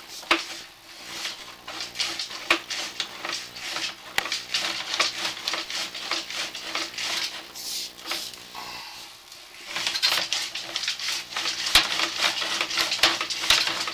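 Rapid, dense clicking and rattling with a steady hum underneath, from sewer inspection camera gear: the push cable and reel being worked to feed the camera head down into the sewer main. The rattling eases briefly about nine seconds in.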